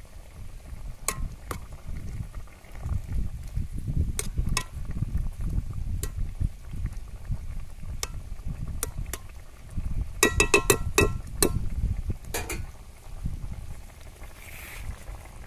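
Metal spoon clinking against a metal cooking pot of simmering fish curry, scattered single clinks at first, then a quick run of ringing clinks from about ten to eleven and a half seconds in, over a low rumble.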